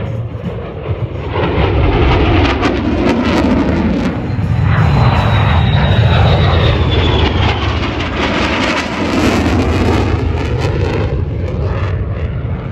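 F-35 Lightning II's jet engine roaring as the fighter passes during an air show demonstration, swelling about two seconds in and staying loud. A faint high whine falls in pitch partway through.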